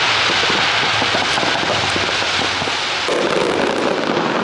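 Fireworks going off: a dense, continuous crackle of many rapid small reports from a row of comets fired in quick succession.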